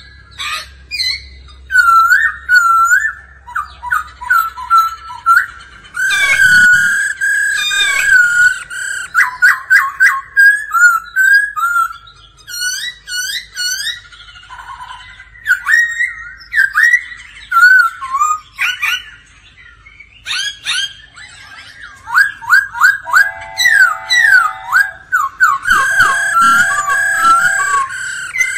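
Black-throated laughingthrush singing loud, varied whistled phrases of quick slurred and rising notes in short bursts. Twice in the second half there are brief lower, buzzy calls.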